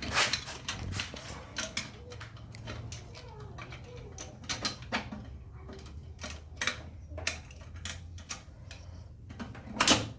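Irregular metal clicks and clinks of a wastegate being worked into place against a turbo manifold, with one louder knock near the end, over a low steady hum.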